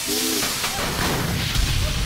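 Steam hissing hard in a steady jet out of the steam port punched high in the end of a hot water heater tank being used as a makeshift steam engine. A brief low pitched note sounds at the very start.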